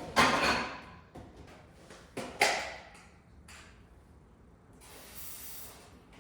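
Kitchen handling noises while food is packed away: two sharp swishes that fade out, about two seconds apart, a few light clicks between them, and a soft hiss near the end.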